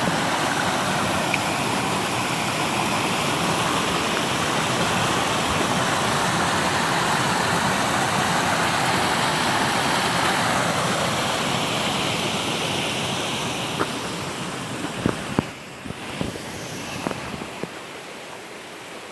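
Steady loud rushing noise of running water. About fifteen seconds in it drops off sharply, followed by a few short knocks.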